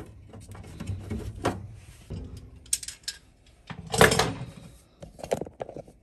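Hands threading a corrugated gas flex line's brass fitting onto a furnace gas valve: scattered metal clicks and rubbing, with a louder scrape about four seconds in.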